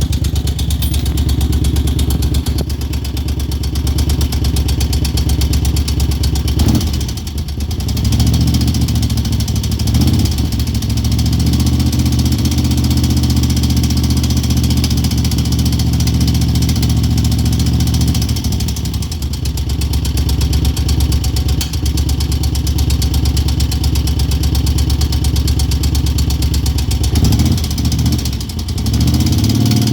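Moto Guzzi California EV's air-cooled transverse V-twin idling with a ticking noise, its throttle opened briefly several times so the engine speed rises and falls.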